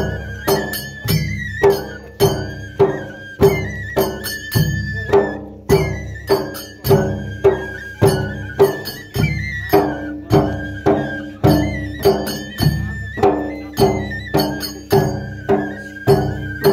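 Traditional folk music: a steady drum beat, a little under two strokes a second, under a high melodic line with repeated falling runs.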